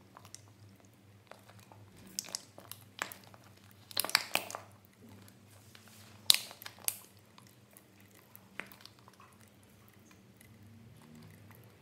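Scattered sharp clicks and crackles, a quick cluster about four seconds in and the loudest about six seconds in, over a faint steady low hum.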